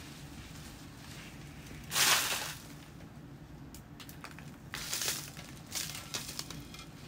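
Potting soil rustling and crumbling as a plant's root ball is worked loose and pulled out of a plastic nursery pot, loose soil dropping onto newspaper. The loudest rush of crunching comes about two seconds in, with smaller ones around five and six seconds.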